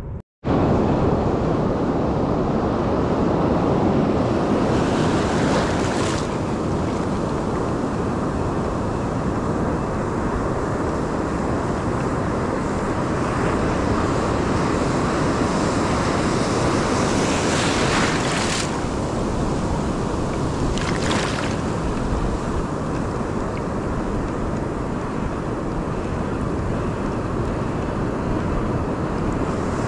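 Ocean surf washing steadily on the beach, with wind rushing over the microphone; a few brief surges of louder hiss stand out.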